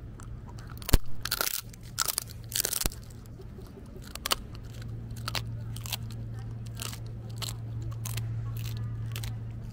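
Shetland sheepdog crunching and chewing a hard treat close to the microphone: a sharp crack about a second in, a quick run of loud crunches over the next two seconds, then scattered softer chews and mouth clicks. A steady low hum runs underneath.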